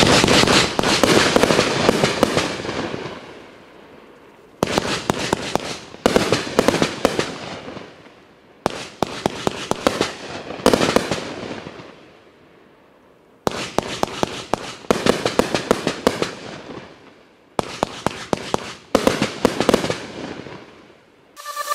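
Alien Attack consumer firework cake firing a run of about ten volleys. Each volley is a dense rattle of crackling pops that fades over a second or two, with short lulls between volleys.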